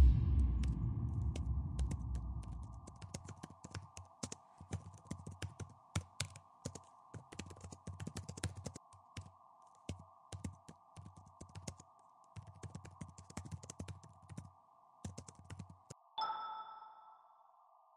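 Keyboard typing sound effect: rapid, irregular key clicks over a steady hum. A deep boom at the very start fades over about three seconds. About sixteen seconds in, the typing and hum stop and a bell-like ding rings out and dies away.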